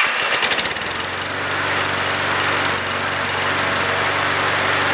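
Briggs & Stratton single-cylinder engine of an electric-start walk-behind lawn mower, fired up on its electric starter just before, running unevenly for about the first second and then steadily. It starts on the key with a freshly replaced battery.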